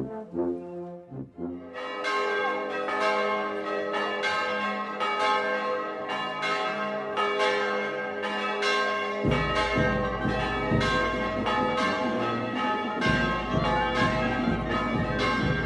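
Church bells ringing in quick, repeated strikes, several bells sounding together. The last notes of a brass band stop in the first two seconds, and about nine seconds in a low rumble joins underneath the bells.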